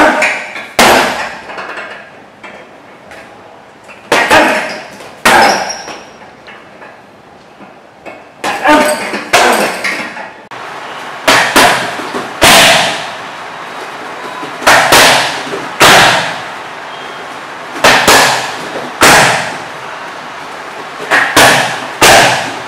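Gloved punches and kicks smacking into handheld Thai pads, a jab, cross and switch kick combination drilled over and over: sharp slaps in groups of two or three every few seconds, each with a brief echo off the gym walls.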